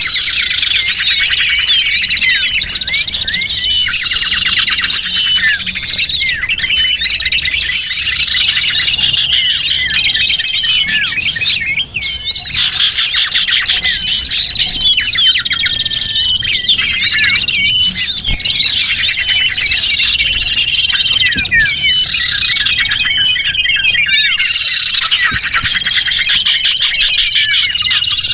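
Dense, continuous chorus of many small birds chirping, twittering and trilling over one another, with some held high notes. This is a bird-lure recording of the kind played to call small birds in.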